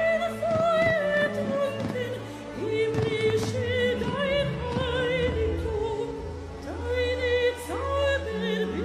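A woman singing held notes with a wide vibrato, in a classical or operatic style, over instrumental backing music.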